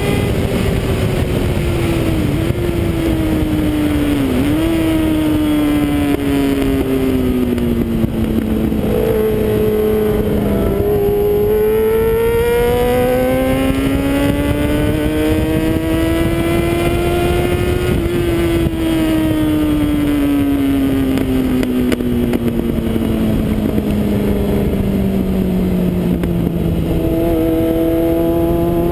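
Yamaha sport motorcycle's engine heard from on board, its revs sliding down for the first ten seconds with two brief dips in pitch, rising again for several seconds, then falling slowly and picking up near the end, over a steady rush of wind noise.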